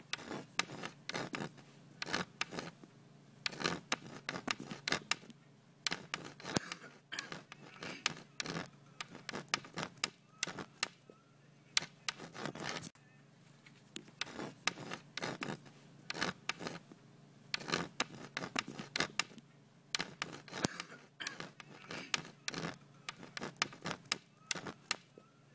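Chalk writing on a blackboard: quick, irregular scratches and taps, several a second, stroke after stroke, with short pauses between words.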